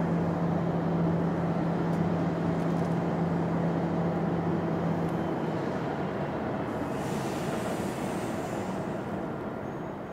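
Airbus A330-300 jet engines running, a steady rumble with a low hum that growing steadily quieter; the hum drops out about halfway through.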